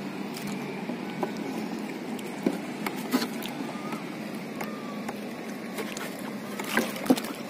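Steady wash of choppy water and wind around a small wooden boat, with a few light knocks and clicks, the loudest near the end.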